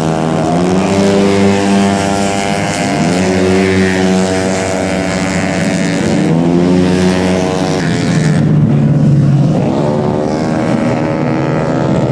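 Tuned 130 cc racing scooter engines at full throttle, their pitch climbing again and again as the bikes accelerate, about four times over the stretch.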